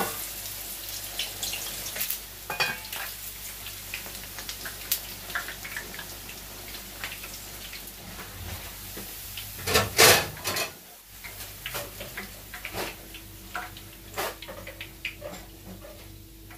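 Katlama flatbread frying in hot oil in a frying pan: a steady sizzle with quick crackling spatters, and a louder burst of noise about ten seconds in.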